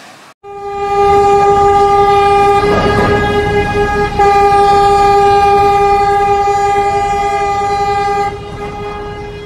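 Ship's horn sounding one long, steady blast, with a brief break about four seconds in and softer near the end, as a ship crushes into another vessel's container stacks. A burst of rough noise from the collision comes about three seconds in.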